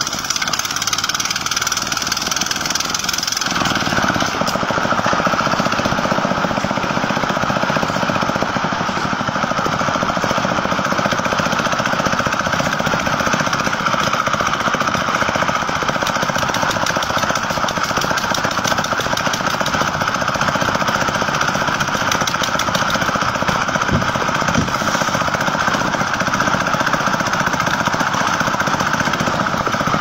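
Engines of a site concrete mixer and its material-hoist winch running steadily with a fast rattling pulse; the low rumble grows fuller about three and a half seconds in.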